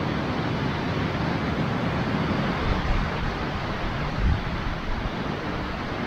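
Wind buffeting the microphone outdoors: a steady rushing noise with a fluctuating low rumble and a couple of stronger gusts about three and four seconds in.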